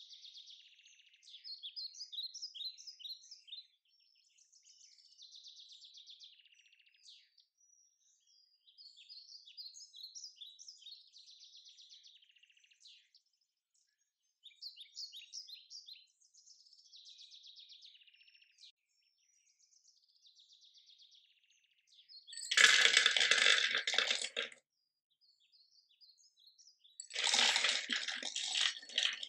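Small birds chirping and twittering in short repeated phrases. Later, shelled nuts are poured into a plastic food processor bowl twice, each pour a loud rattling clatter of about two seconds; the second is almonds.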